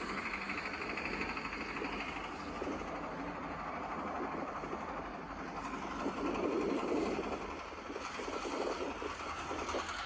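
A small boat's engine running steadily as the boat moves across the water, a constant low drone under the noise of the moving water.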